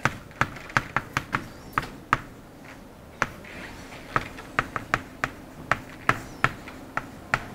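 Chalk tapping and clicking against a blackboard while writing numbers: a run of sharp, irregularly spaced taps.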